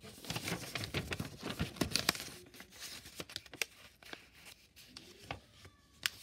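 A sheet of paper being handled and folded by hand, crinkling and rustling in irregular bursts with sharp crackles, busiest in the first couple of seconds and sparser after that.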